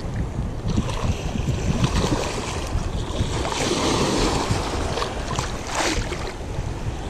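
Shallow bay water sloshing and lapping close to the microphone, with a small wave breaking about four seconds in, and wind buffeting the microphone.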